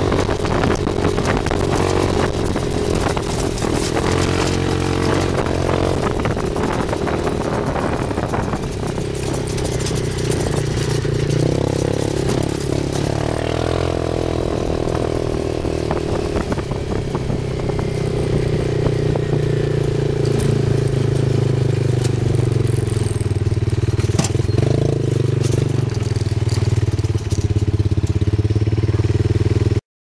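Roketa 250cc buggy's CN250 single-cylinder four-stroke engine running under way, its note falling and rising several times with the throttle. Heavy wind noise and rattles from the bumpy ride are mixed in.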